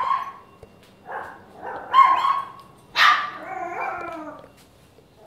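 Papillon barking: short, high-pitched barks about a second apart, the last drawn out into a longer wavering note.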